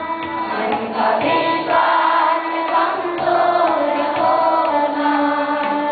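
Group of schoolchildren singing a prayer song together, with musical accompaniment.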